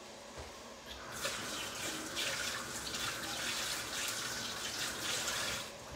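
Water running steadily from a kitchen tap, starting about a second in and stopping just before the end.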